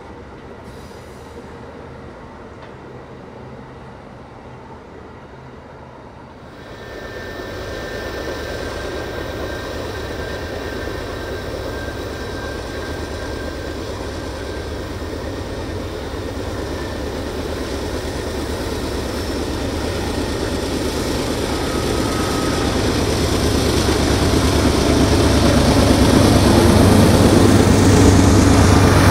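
Diesel-electric locomotives of a CSX double-stack freight train approaching and passing: a steady low engine hum and the rumble of wheels on rail that grow louder throughout, loudest near the end as the locomotives go by. For the first six seconds, before that, a quieter rumble of Amtrak Superliner passenger cars rolling along the track.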